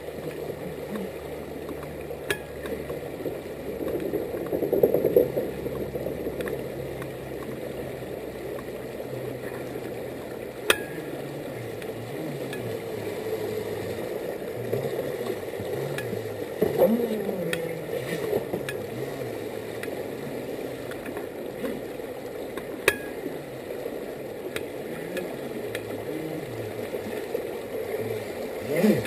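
Creek rapids rushing steadily, with swells of splashing a few seconds in and again past the middle. Under the water a small motor hums low, its pitch stepping and gliding up and down, and there are a few sharp clicks.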